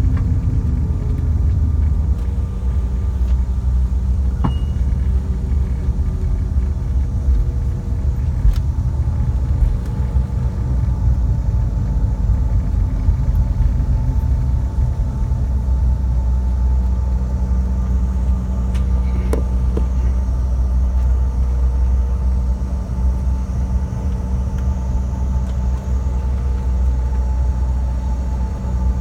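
Cabin noise of a CRJ-700 regional jet rolling out and taxiing after landing: a steady low rumble with a hum of steady engine tones from its idling rear-mounted GE CF34 turbofans. The tones slide a little lower in the first couple of seconds as the jet slows.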